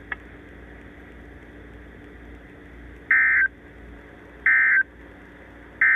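NOAA Weather Radio's SAME end-of-message data code: three short bursts of two-tone digital screech, each about a third of a second and a little over a second apart, starting about three seconds in, marking the end of the weekly test. Before them only steady radio hiss.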